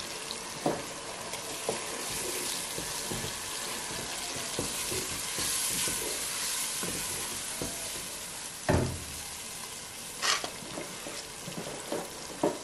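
Onions and blended tatashe peppers frying in red palm oil in a large pot, a steady sizzle as they are stirred with a wooden spoon. The spoon knocks against the pot a few times, loudest about two-thirds of the way in.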